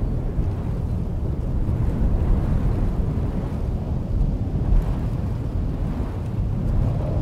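Thunderstorm ambience: a steady low rumble of wind and rolling thunder, with no sharp thunderclap.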